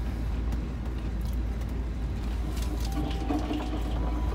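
Steady low rumble of a motorhome rolling slowly along a gravel road, heard from inside the cab. A few faint short tones come in near the end.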